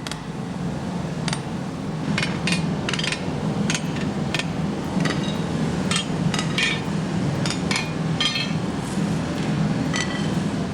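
Metal tools and iron bands clinking and knocking against each other, irregular sharp ringing clinks as the bands are worked free and handled, over a steady low rumble.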